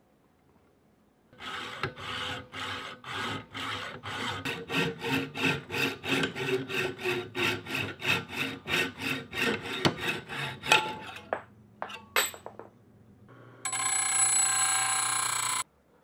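Hacksaw cutting a RockShox ZEB fork's aluminium steerer tube in a saw guide: even back-and-forth strokes that quicken to about three a second for roughly nine seconds. A few sharp clicks follow, then a steady noise lasting about two seconds near the end.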